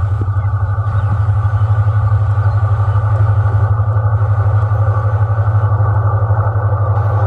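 Diesel locomotive of an express passenger train running steadily: a loud, low engine hum that pulses quickly and evenly, with a rushing mid-range noise over it.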